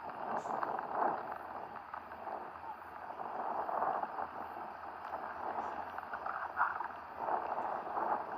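Heavy rain falling steadily; the noise swells and eases several times.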